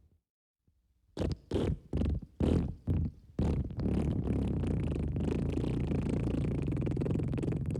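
Cartoon wet fart sound effect. About a second in, a string of about six short blasts, then one long, continuous low buzzing blast.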